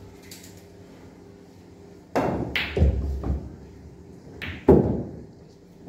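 Knocks and thuds from play on a pool table: a sudden heavy impact about two seconds in, a smaller knock a second later, and a sharper, louder knock near the end.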